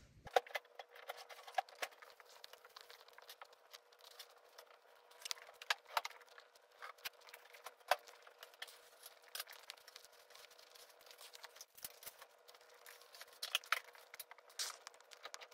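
Sulcata tortoise eating from a plate: irregular sharp clicks and crunches as its beak bites into the food, with a faint steady hum underneath.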